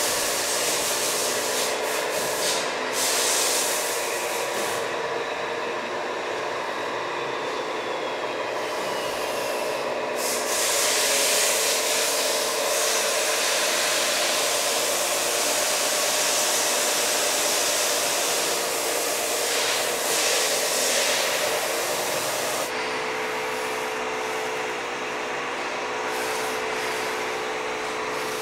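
Radio-controlled Liebherr 944 model excavator's hydraulic pump running with a steady whine, with long stretches of hissing and the gritty scrape of sand as the bucket digs and swings. The whine drops to a lower steady pitch about three-quarters of the way through.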